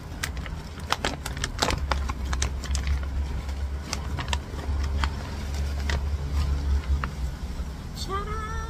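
Plastic fish-packaging bag crinkling and crackling as it is torn open and the fish is pulled out, in a run of sharp clicks. Near the end a cat meows briefly.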